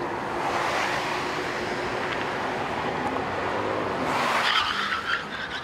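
Cars passing close by at freeway speed, a rush of tyre and engine noise. It swells about a second in and again, louder, around four and a half seconds in.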